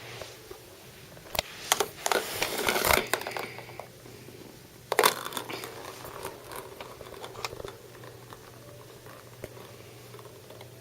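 Crinkling and rustling with sharp little clicks from a kitten playing with small plastic toys. The sound comes in two spells: a loud one starting about a second in, and another that starts with a sharp hit about five seconds in and thins out.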